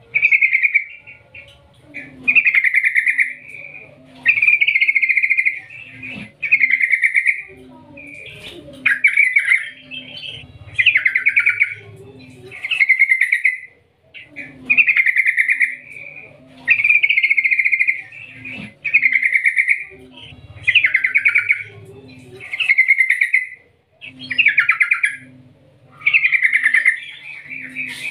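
Yellow-vented bulbul (trucukan) singing a long, unbroken run of bubbling, trilled phrases, about one a second with short gaps between them.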